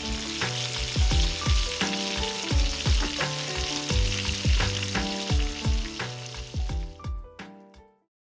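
Food sizzling as it fries in hot oil, heard under background music with a steady beat. The music and the sizzle fade out near the end.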